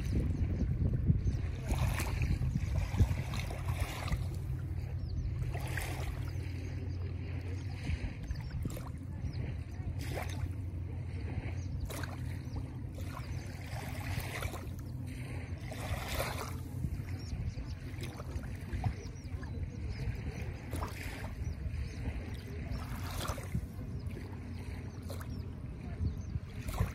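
Wind rumbling on the microphone over gentle water lapping at a sandy shore, with scattered soft splashes.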